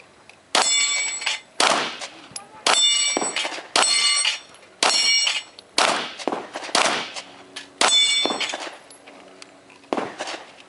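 Handgun shots at a steel plate rack, about nine at roughly one a second. Most shots are followed at once by the ringing clang of a struck steel plate.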